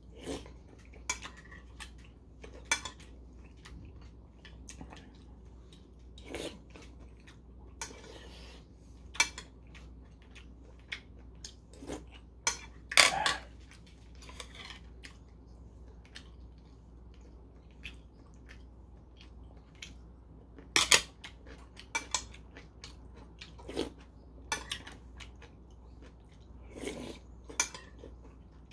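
Metal spoon clinking and scraping against a porcelain soup bowl while eating soup, in scattered clicks with a few louder knocks about halfway and two-thirds of the way through, and quiet chewing between.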